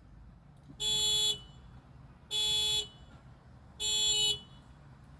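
A parked car's alarm sounding its horn in repeated honks: three even, half-second honks about a second and a half apart.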